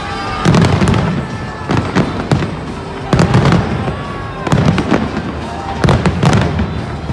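A large professional fireworks display, close by: aerial shells bursting in loud, sharp bangs that come in quick clusters about every second.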